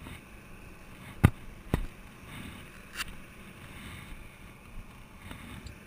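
Two sharp knocks about half a second apart, followed by a lighter click about three seconds in, over a faint steady background hum.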